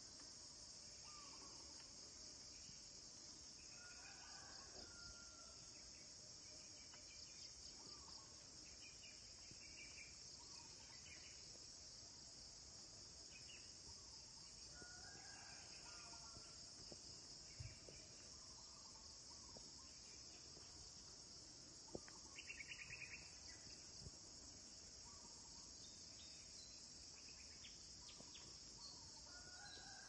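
Faint, steady, high-pitched chorus of insects, with short bird calls here and there and a brief rattle a little over two-thirds of the way through.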